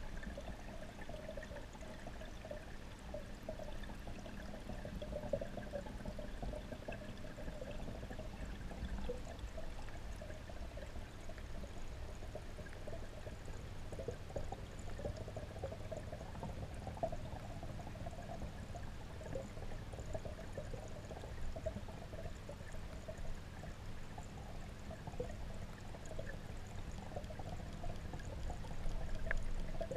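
Steady flow of water in a goldfish pond, heard through a submerged camera, with a faint steady hum beneath it.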